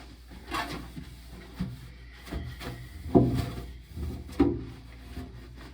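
About five clunks and knocks of objects being handled and set down, the loudest about three seconds in, over a steady low hum.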